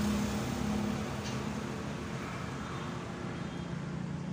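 A steady background hum: a low drone under a faint, even noise, with no sudden events.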